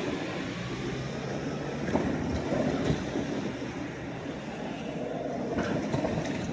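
Meitetsu electric train running on the rails: a steady rumble of wheels on track with a low hum under it for the first few seconds and a few short clacks.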